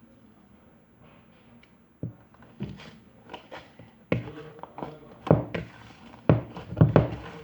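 Fluffy slime made with shaving foam being squeezed and kneaded by hand, giving irregular sharp sticky pops and slaps that start about two seconds in and come thicker and louder toward the end.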